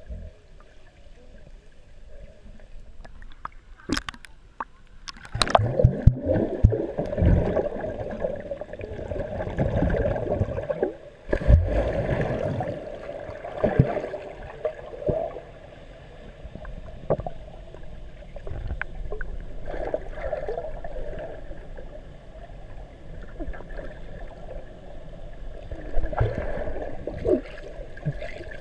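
Muffled water sloshing and gurgling from swimmers moving around a camera held underwater in a waterproof housing, with a couple of sharp clicks about four and five seconds in.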